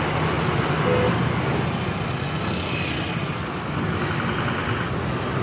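Bus engine running with road traffic noise, heard from inside a moving bus at its side window; the level stays steady.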